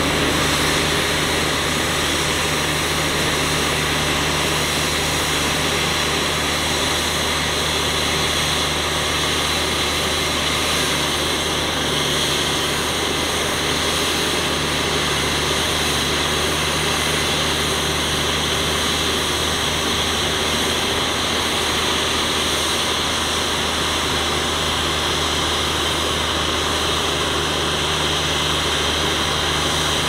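Heavy diesel engine of earthmoving machinery running steadily at an even pitch, with a dense mechanical noise over it and no sudden knocks or changes.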